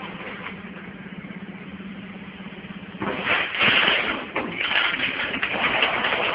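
Screw counting and bagging machine: a steady buzz from the machine, then about three seconds in a sudden loud metallic rattle as a counted batch of screws pours down the forming tube into the plastic bag.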